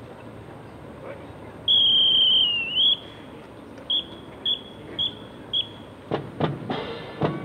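Drum major's whistle: one long blast that dips slightly in pitch, then four short, evenly spaced blasts counting the marching band in. Sharp drum hits from the drum line follow near the end.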